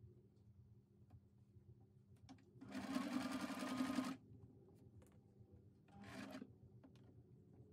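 Electric domestic sewing machine stitching through layered felt in short runs: a burst of rapid needle strokes lasting about a second and a half, starting around three seconds in, then a shorter, quieter run about six seconds in. Between the runs there are only small clicks as the fabric is shifted.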